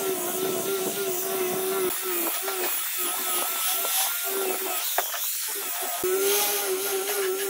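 Angle grinder fitted with a sanding disc, running and sanding the curved edge of a wooden workpiece: a wavering motor whine over a steady hiss of abrasive on wood. The whine breaks up and thins out for a few seconds in the middle, then steadies again near the end.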